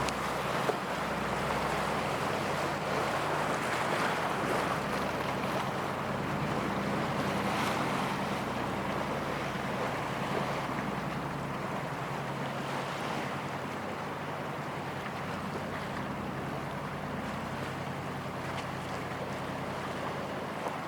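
A Japan Coast Guard patrol boat running past, with a steady low engine hum under the rush of water from its hull and wake. It slowly fades away, with some wind on the microphone.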